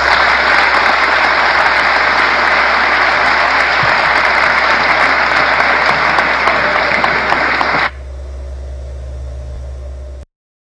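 Audience applauding steadily for about eight seconds, then cut off abruptly. A low hum continues for about two seconds before the sound stops.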